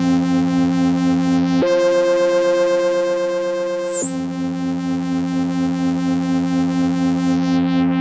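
Moog Grandmother analog synthesizer playing a sustained pad patch built from its two oscillators and noise generator. The held notes step up to a higher note about a second and a half in, then drop back to the lower note about four seconds in.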